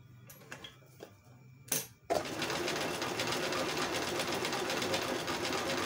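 Singer 974 Discomatic electric sewing machine starting up about two seconds in, after a short click, and running steadily at speed while sewing an enlarged decorative stitch from its pattern disc.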